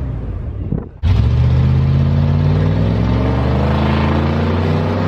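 Pickup truck's engine and exhaust under acceleration, heard from out the side window. The engine note drops away for a moment about a second in, then comes back suddenly and loud, and climbs in pitch.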